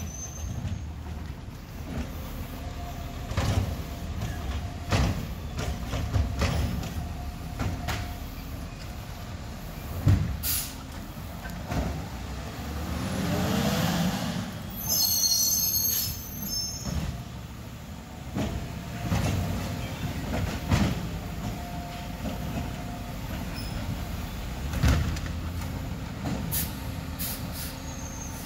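Diesel engine of a Labrie recycling truck running as it creeps along, with repeated metallic clanks and knocks. About halfway through, a whine rises and falls, followed by a high brake squeal as the truck stops.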